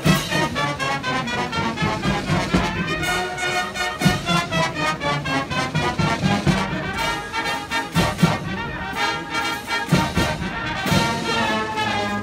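Military marching band playing: brass instruments sounding sustained chords, with drum hits every second or two.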